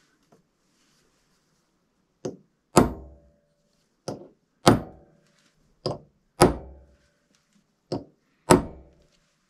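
Small hammer striking the pin of an optical center punch set on a steel bar, marking four hole locations: four times a light tap followed by a firmer blow, each blow with a short metallic ring.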